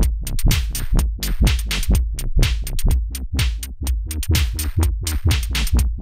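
Electronic drum-machine pattern from a Dave Smith Tempest with a Roland System-1m synth line, run through a Hexinverter Mutant Hot Glue compressor whose sidechain is keyed by the kick drum. This makes the synth pump in time with the kick, with the compression pushed hard.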